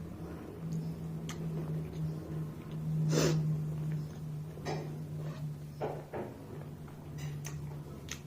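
Close-up eating sounds: chewing and mouth smacks, a handful of short wet sounds, the loudest about three seconds in, over a steady low hum.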